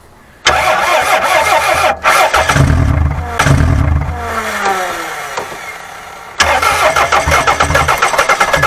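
Toyota 4S-FE four-cylinder petrol engine cranked on the starter without starting. It turns over, with a single sharp pop about three and a half seconds in. The sound then winds down in a falling whine, and the cranking picks up again loudly about six and a half seconds in.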